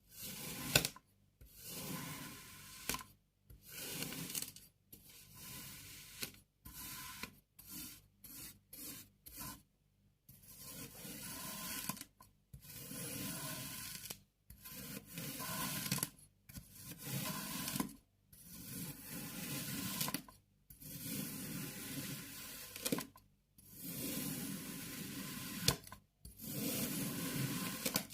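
Kinetic sand being cut and scraped, a grainy rubbing sound, in a string of short clips of one to two seconds separated by brief silent gaps, with an occasional sharp tap.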